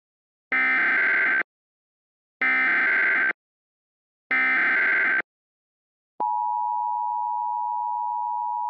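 Emergency Alert System SAME header: three identical bursts of digital data tones, each just under a second long, about two seconds apart. About six seconds in, the steady two-tone EAS attention signal begins; it marks the start of an emergency alert broadcast.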